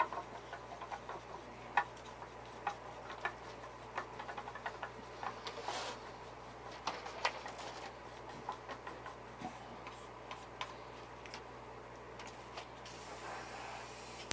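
Faint, irregular light clicks and taps of small objects being handled on a workbench, from a few seconds of lure-painting prep at a lure clamp. A short hiss comes about six seconds in, and a longer hiss comes near the end.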